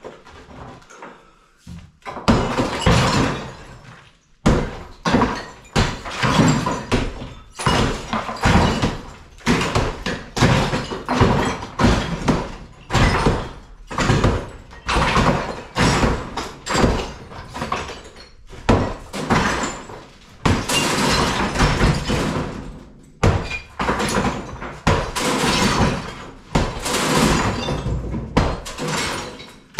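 Repeated heavy hammer blows knocking down a plastered interior wall, about one strike a second and starting about two seconds in, each followed by the crumble of breaking plaster and masonry.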